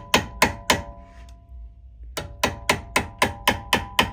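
Hammer tapping on metal at a car's brake caliper: even strikes about four a second, each with a short metallic ring. The tapping stops for about a second, then picks up again at the same pace.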